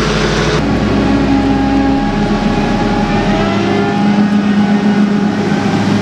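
Diesel engines of farm machinery passing close by: a tractor towing a header trolley, then a New Holland TC5080 combine harvester. The sound changes abruptly about half a second in, and an engine's pitch rises around the middle.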